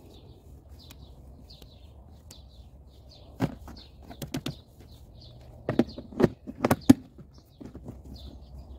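Sharp plastic clicks and knocks as a clear lid is pressed down onto a plastic food tub, the loudest snaps coming in a quick cluster a little past the middle. Small birds chirp repeatedly in the background.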